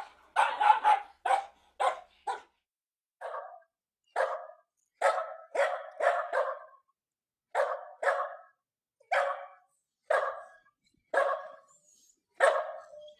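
A dog barking repeatedly: a quick run of barks in the first two seconds, then after a short pause single and paired barks about once a second.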